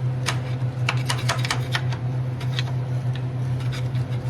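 Irregular sharp metallic clicks and taps as a rusted part is worked loose from a Bridgeport milling machine. A steady low electrical hum runs under them, from a welder left switched on.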